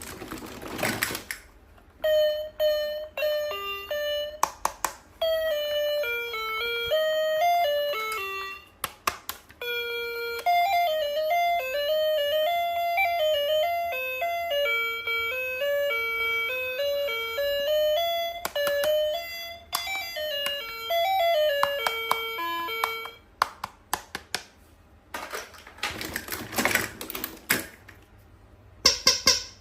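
A simple electronic chime melody playing one note at a time for about twenty seconds, like a toy's built-in tune. Short noisy bursts come before the tune starts and again a few seconds after it stops.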